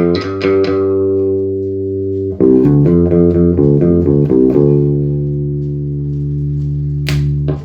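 5-string Warwick Corvette SS electric bass with a custom two-band EQ preamp, played through a 1x12 speaker cabinet. It plays a quick run of notes, holds a ringing note, then plays a second run that rings out long. A single sharp click comes near the end.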